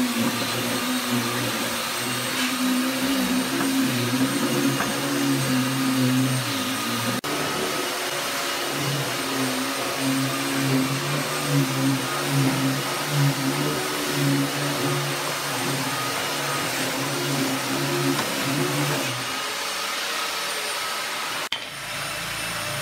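An electric motor running steadily, a wavering hum with a hiss over it; it drops out for a moment twice.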